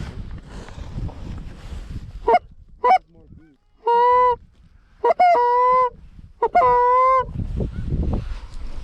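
Goose honks: two short clucks about two seconds in, then three long, steady honks that are the loudest sounds, with rustling before and after.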